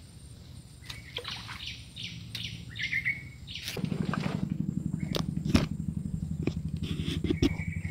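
A small engine running with a fast, even pulse, much louder from about four seconds in, with birds chirping in the first half and a few sharp clicks.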